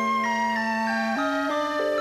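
Instrumental background music: a simple melody of held notes that change every few tenths of a second, over a slower lower part.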